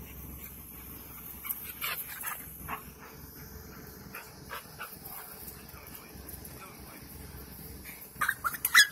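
Dogs yipping and barking: scattered short yips through the first half, then a quick run of loud, sharp yips near the end.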